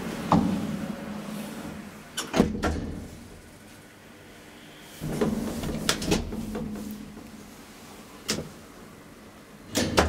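Mechanical sounds of a DEVE hydraulic elevator car as its controls are worked: several sharp clacks, the loudest about two seconds in, and a low hum that comes in with a thud about halfway through and fades.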